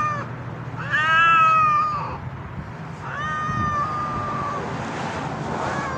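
Stray cats in a face-off, one yowling in long drawn-out wails: a loud yowl about a second in, then a fainter one after about three seconds.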